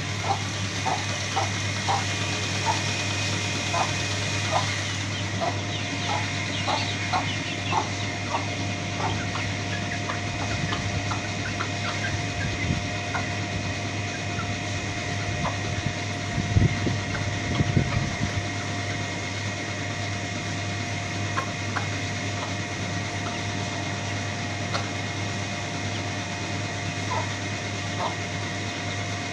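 Aseel hen and chicks foraging, with many short calls scattered throughout over a steady low hum. A few louder low thumps come about halfway through.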